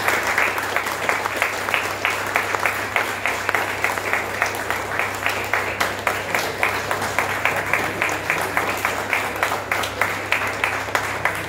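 A small group of people clapping steadily by hand, with a low steady hum underneath.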